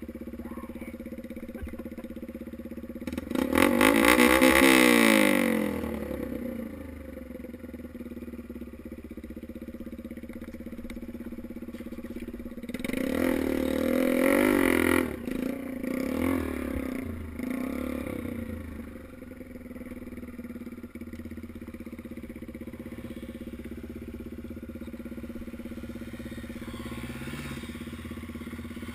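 Dirt bike engine idling steadily, revved hard with the pitch rising and falling about three seconds in, then revved again in a longer run of several revs through the middle before settling back to idle.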